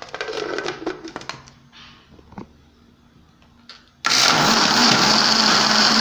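Countertop blender switched on about four seconds in, its motor running steadily as it blends lemon peels in water. Before that, a few clicks and knocks as the plastic lid is fitted onto the jar.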